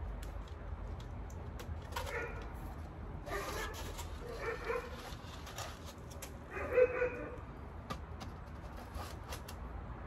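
Four short animal calls, the loudest about seven seconds in, over light clicks and knocks of plastic nursery pots being set into a plastic flat.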